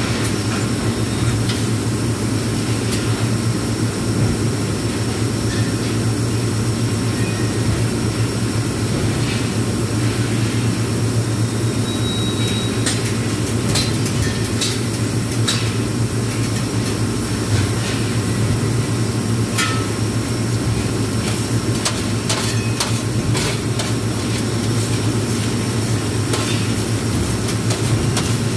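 Steady low machine hum of welding-shop equipment, with scattered sharp metallic clicks and taps at irregular intervals as the submerged arc welding setup is adjusted by hand.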